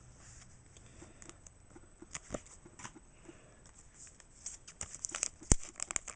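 Trading cards being handled and slid into a plastic card sleeve: faint scattered clicks and rustles of card and plastic, busier in the second half, with one sharp click near the end.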